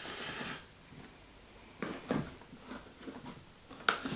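Plastic screw cap being fitted and tightened on a plastic malt-extract canister: a brief hiss at first, then a few faint clicks and scrapes, with a sharper click near the end.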